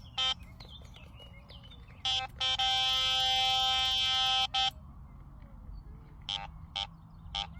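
Carp-fishing electronic bite alarm sounding. A couple of single bleeps run into a continuous tone of about two seconds, followed by another bleep and then three fainter, higher bleeps near the end. This is the pattern of line being pulled steadily through the alarm, a fish on a run.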